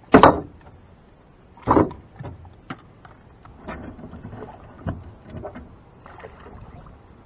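Freshly caught catfish being handled on a boat and put on a rope stringer over the side. There are two loud slaps or thumps, about a quarter second and just under two seconds in, then a string of lighter knocks, clicks and small splashes.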